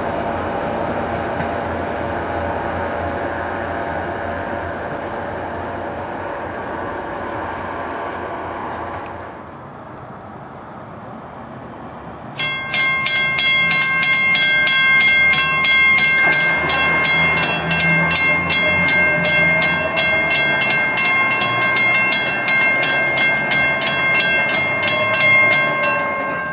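A train rumbling away and fading over the first several seconds. About twelve seconds in, grade-crossing warning bells start suddenly and ring in rapid, even strokes, the loudest sound, as the crossing activates for an approaching train.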